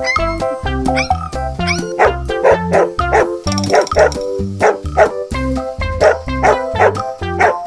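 A dog barking in a quick series, about two barks a second, over background music with a steady beat.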